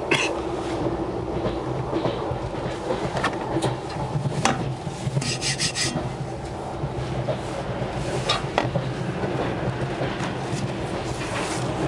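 Steady running noise of a double-decker electric train (Stadler KISS) heard from inside the passenger car. Close by, a plastic seat-back tray table and the seat pocket are handled, giving sharp clicks and a short scraping rasp about five seconds in.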